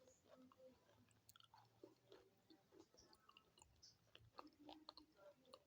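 Faint, close-up chewing of hard, chalky pieces, with small irregular crunches and clicks throughout.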